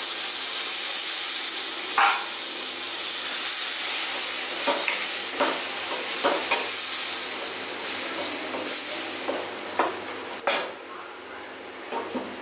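Onion-tomato masala with fresh curd in it sizzling in hot oil in a steel pan, while a spatula scrapes and stirs it in short strokes. The sizzle dies down sharply about ten seconds in, and a glass lid clinks onto the pan near the end.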